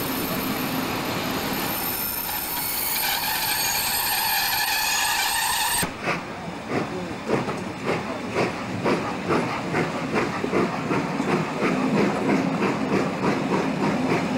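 Steady hiss with a few held tones that cuts off abruptly about six seconds in. Then a steam-hauled train pulls away, with rhythmic exhaust beats from the steam locomotive quickening and growing louder as it gathers speed, heard from a carriage window.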